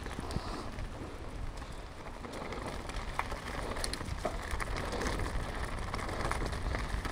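Mountain bike rolling downhill: steady crackling tyre noise over the track with scattered clicks and rattles from the bike, and wind buffeting the microphone in a constant low rumble.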